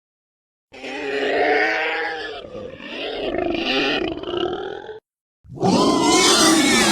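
Two dinosaur roar sound effects, one after the other: a long wavering roar of about four seconds, then after a brief silence a louder second roar begins near the end.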